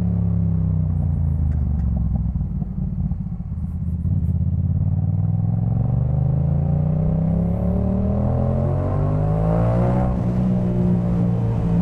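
Yamaha MT-07's parallel-twin engine through a full Jeskap K4 aftermarket exhaust, riding: the engine note falls and dips about three seconds in, then climbs steadily as the bike accelerates and eases off near the end.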